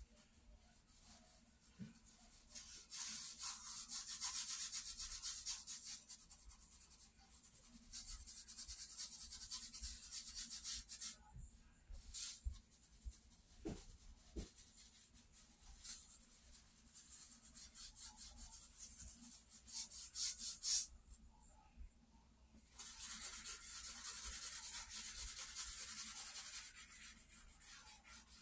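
Charcoal scratching and rubbing across drawing paper in runs of quick strokes lasting a few seconds each, with short pauses between runs.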